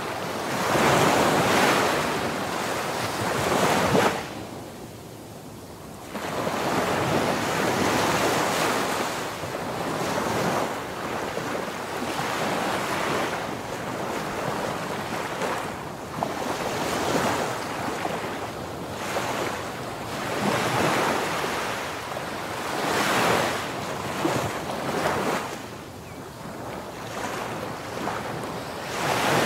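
Ocean surf: waves breaking and washing in, in repeated swells every few seconds. The wash drops away sharply about four seconds in and comes back with the next wave about two seconds later.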